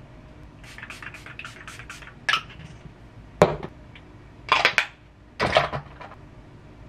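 Small hard makeup cases being handled on a table: a quick run of light ticks, then a sharp click and a louder knock, then two short rattly clatters.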